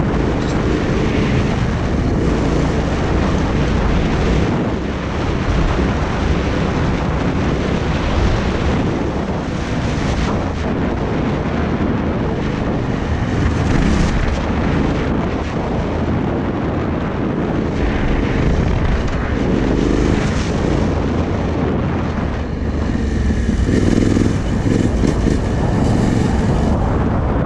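Yamaha Ténéré 700's parallel-twin engine revving up and down through its aftermarket exhaust as the bike is ridden around a dirt track, with heavy wind buffeting the action-camera microphone.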